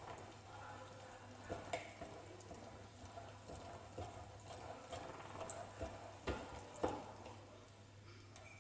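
Irregular clicks and knocks from the parts of a manual meat grinder being handled, a few of them sharper, over a faint steady low hum.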